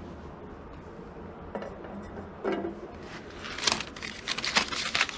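45 rpm records in paper sleeves being flipped through by hand in a cardboard box: a couple of soft knocks, then from about three seconds in a quick run of papery flicks and rustles.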